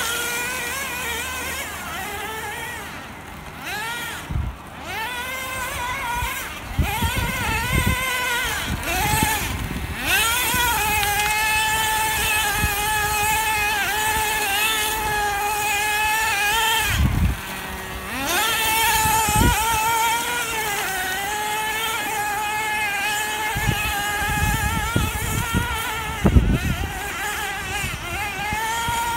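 Small nitro (glow-fuel) engine of an RC truggy run hard, a high-pitched buzzing whine whose pitch keeps rising and falling with the throttle, easing off briefly a few times as the truck turns. The owner considers the engine not yet fully broken in.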